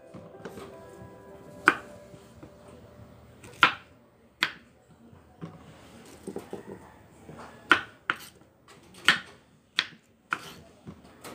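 Kitchen knife cutting okra on a bamboo cutting board: about seven sharp, irregular knocks of the blade striking the board, spaced out at first and coming closer together in the second half. Faint background music runs underneath.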